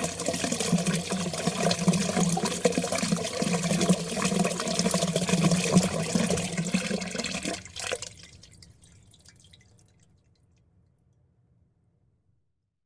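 Water flowing and splashing steadily, full of fine drips and ticks. It cuts off sharply about eight seconds in, leaving a faint tail that fades to silence.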